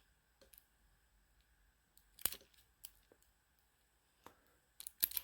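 Faint, scattered clicks of a pick and tension wrench working in a Master Lock padlock. There is a sharper click a couple of seconds in and a small cluster of clicks near the end.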